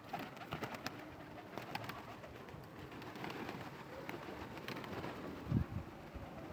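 Domestic pigeons cooing, with many sharp clicks and rustles. A louder low thump comes about five and a half seconds in.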